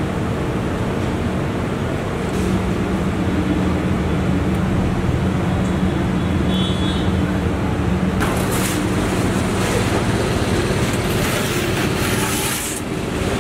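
Steady street traffic noise with a steady low hum underneath, and a few short clattering sounds in the last few seconds.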